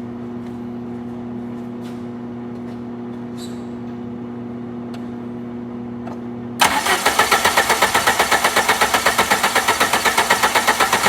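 A steady hum, then about six and a half seconds in the 1990 Plymouth Acclaim's engine is cranked over by the starter in a fast, even rhythm of about five pulses a second for some four seconds without catching: crank, no start, because there is no spark from the ignition.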